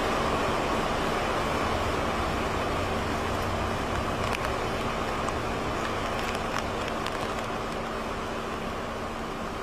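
Strong tropical-storm wind rushing through palm fronds and trees as a steady noise that slowly eases, with a faint low hum underneath.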